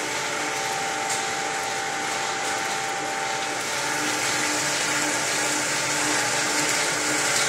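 Bobst Domino 100 folder-gluer running: a steady whirring hiss of its belts and rollers carrying carton blanks. A faint thin whine sits over it for the first few seconds, then fades out.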